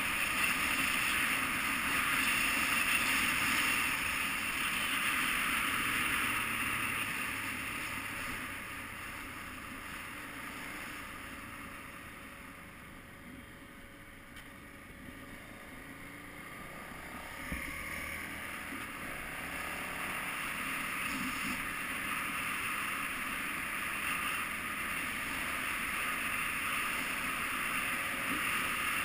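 KTM 990 Adventure's V-twin engine running under way on a dirt track, mixed with wind and riding noise. It eases and grows quieter through the middle, then builds up again after a single knock a little past halfway.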